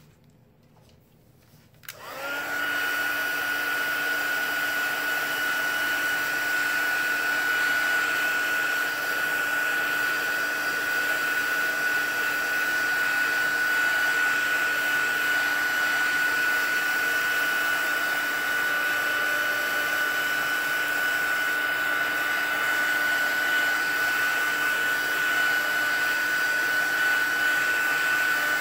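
Craft heat tool (embossing heat gun) switched on about two seconds in and running steadily, a fan whir with a steady high whine, as it dries wet watercolor paint.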